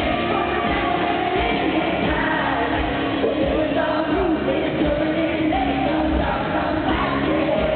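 Live concert music: a country-pop band playing with a woman singing lead, continuous and steady in loudness.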